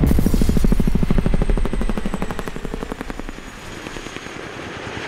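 Rotor blade slap of a low-flying V-22 Osprey tiltrotor: a fast, even thudding that fades away over a few seconds, with a faint high turbine whine slowly falling in pitch.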